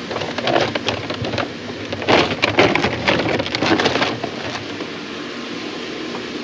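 Powdered calf milk replacer being scooped and poured into a container: a dry, rain-like hiss with a dense clatter of bursts between about two and four seconds in.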